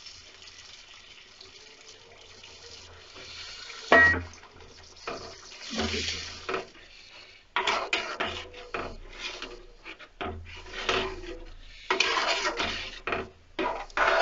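A metal ladle stirring thin, watery spinach curry in a metal pan, with repeated sloshing and scraping against the pan and a sharp clank about four seconds in. The first few seconds hold only a faint steady hiss.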